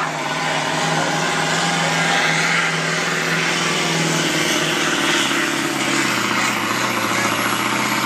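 A diesel pickup engine running at full throttle under heavy load, pulling a weight sled at a truck pull. The engine note holds steady and sags a little in pitch near the end as the load builds.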